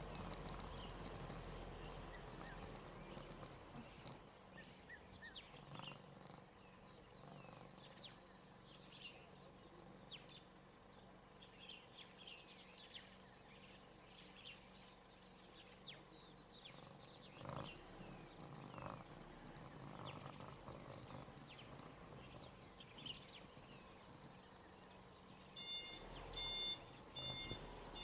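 Faint outdoor ambience of birds chirping in short, quick falling calls over a steady high tone. Near the end, electronic beeping starts, a couple of beeps a second.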